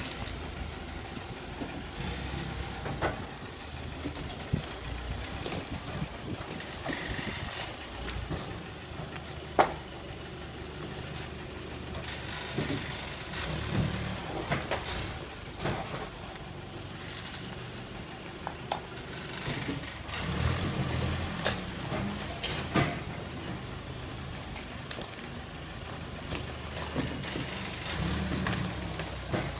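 JCB 3CX backhoe loader's diesel engine running as the machine works, swelling louder for a few seconds about two-thirds of the way in, with scattered clanks and knocks from the bucket and debris. The sharpest knock comes about a third of the way in.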